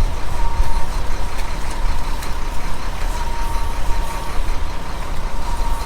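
Heavy diesel engines of concrete mixer and pump trucks running steadily, a deep rumble with a faint steady whine above it.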